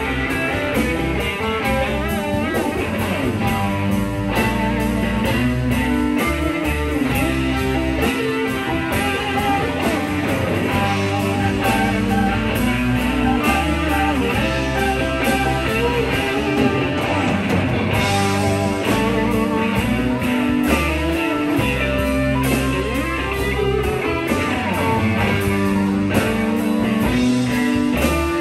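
A live blues band playing an instrumental passage with no vocals: an electric guitar lead with bent notes over bass and drums.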